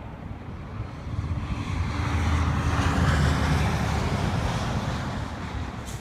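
A vehicle driving past on snowy highway. Its engine and tyre noise swells to a peak about halfway through and then fades, over steady wind noise on the microphone.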